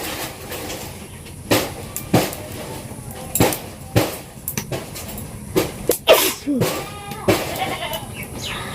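A person sneezing over and over, about nine short, sharp sneezes starting about a second and a half in, a few of them close together in the middle. They come from a head cold.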